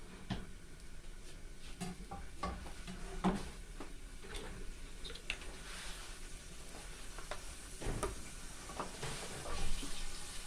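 Cooking oil heating in a saucepan with a faint sizzle, and scattered light knocks and clicks of a utensil against the pan.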